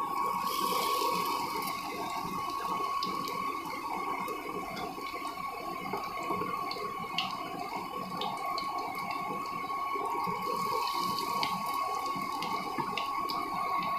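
Battered pumpkin flowers deep-frying in hot mustard oil: a steady sizzle with scattered pops, brighter just after the start as another flower goes into the pan, and again near the end. A steady high tone runs underneath.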